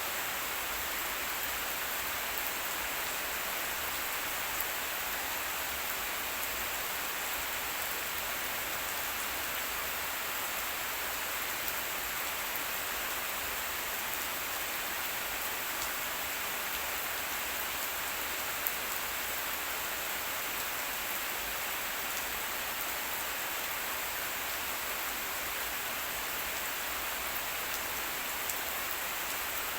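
Steady rain falling, an even hiss with scattered sharper drops ticking through it.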